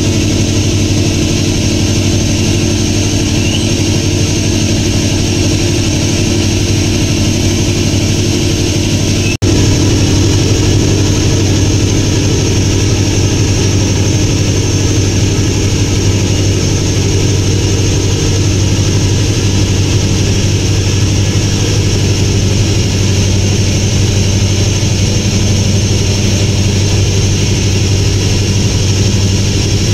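A passenger ship's engine drones steadily underway, with a brief break in the sound about nine seconds in.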